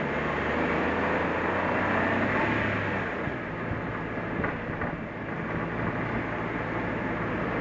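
Suzuki Jimny driving, with its engine running under a steady hum and tyre and road noise; the engine hum drops a little about three seconds in.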